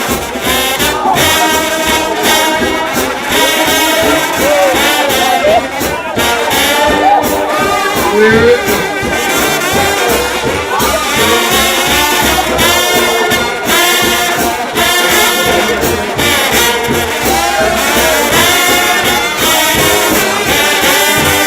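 A trombone shout band playing a gospel hymn: several trombones sound together in harmony, with sliding notes.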